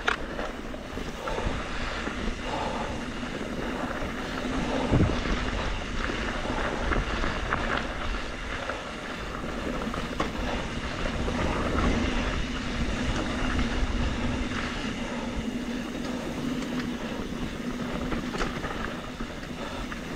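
Mountain bike (a 2021 Trek Slash 7) descending rough singletrack at speed, heard from a GoPro mounted on bike or rider: wind rumbling on the microphone and tyres rolling over dirt and rock, with occasional sharp knocks of the bike over bumps and a steady hum through the second half.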